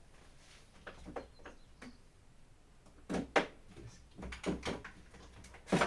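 Irregular knocks and clatters of power-tool battery packs being handled, picked up and set down. There is a louder group of knocks around three seconds in and the loudest knock near the end.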